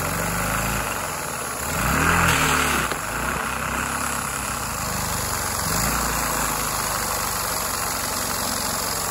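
LEGO vacuum engine running steadily on vacuum suction, with a continuous rushing hum. Its pitch falls and climbs back about a second in, is loudest around two seconds in, and dips again near six seconds.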